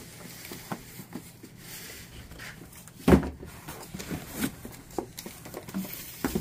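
Small cardboard product boxes being lifted out of a large cardboard shipping box and set down, with scattered light knocks and scrapes of cardboard and one louder thump about three seconds in.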